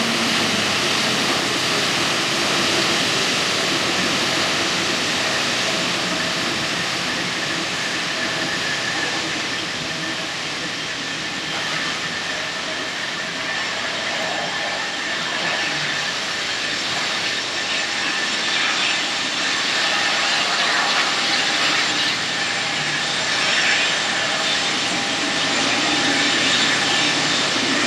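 Boeing 777-9 jet engines (GE9X turbofans) running, a steady whooshing jet noise with faint high whining tones. It eases off a little mid-way and swells again near the end.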